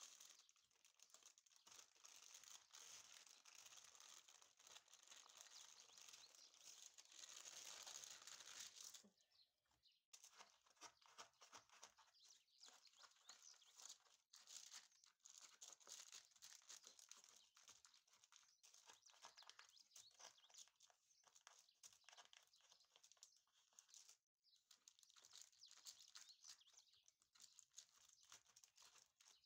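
Faint crinkling and rustling of baking paper being folded and pressed by hand: a dense rustle for about nine seconds, then scattered light ticks and crackles.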